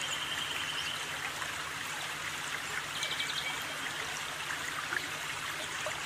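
Steady rushing of flowing water, with short, rapid, high-pitched trills twice, less than a second in and about three seconds in.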